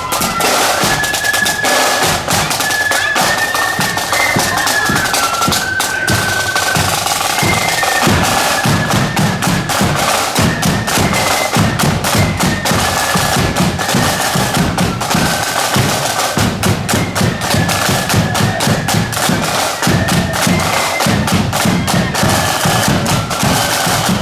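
Marching band playing a tune: a high melody line carried over rapid snare drum rolls and the steady beat of a bass drum.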